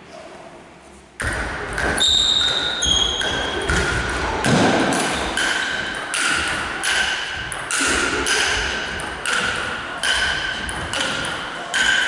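A long ping pong rally played with sandpaper bats: the ball clicking off bat and table about twice a second, echoing in a sports hall. The rally starts about a second in, after a quieter moment.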